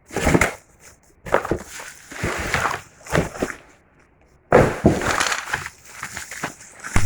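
Packaging being handled and torn open: irregular bursts of crinkling and crackling with short pauses between them.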